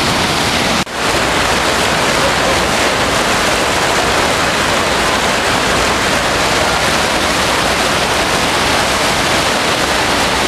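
Creek whitewater rushing down a bedrock rock slide, a loud steady rush. It cuts out for a moment about a second in and resumes.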